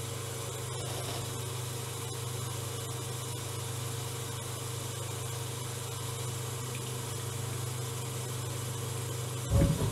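CNC lathe running a finishing pass on a round steel blank: a steady machine hum from the spindle and pumps, with the light cut underneath it. A brief louder noise comes near the end.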